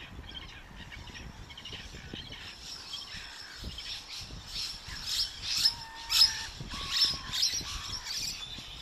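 A flock of gulls calling: many short, harsh squawks that grow busier from about three seconds in, loudest a little after the middle, over a low outdoor rumble.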